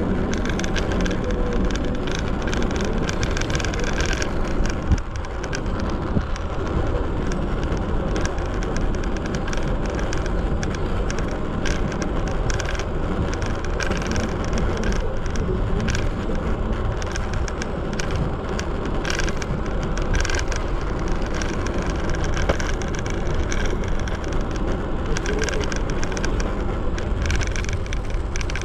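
Segway Ninebot ES4 electric scooter riding over the street, its solid tyres giving a steady road rumble with frequent short rattling knocks from the vibration.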